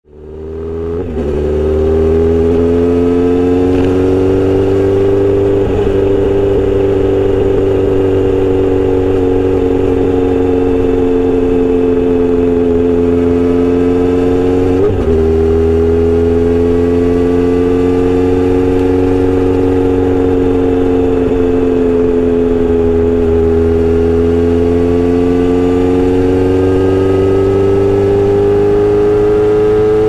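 Kawasaki Z900RS inline-four engine running through a Misty Kintaro short-pipe muffler with a steel L silencer, heard from the rider's seat while cruising. The exhaust note fades in over the first two seconds, then rises and falls gently with road speed, with a brief break about fifteen seconds in.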